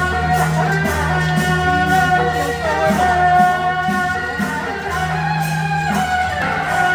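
Music with singing over a steady low drone.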